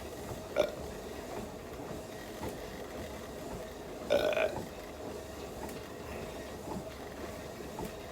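A person belching while exercising on a treadmill: a short belch about half a second in, and a longer, louder belch about four seconds in, over the steady running of the treadmill.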